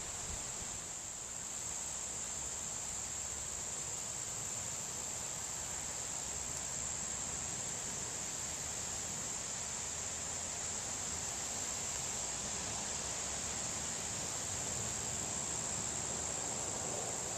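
Steady, unbroken high-pitched insect chorus, like crickets trilling, with a faint low rush of wind underneath.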